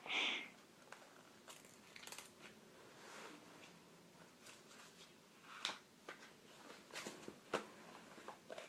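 Quiet room with a short breathy hiss right at the start. After that come faint scattered clicks and rustles, with a few sharper ticks near the end.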